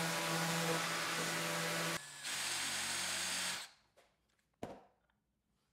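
Power drill boring into hardwood with a counterbore-type bit: the motor runs steadily, breaks off about two seconds in, runs again for over a second and stops. A single short knock follows.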